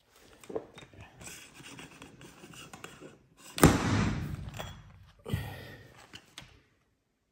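Metal engine parts and a piston clip tool being handled on a workbench: small clicks and scrapes, a sharp clack about three and a half seconds in, and another knock near five seconds.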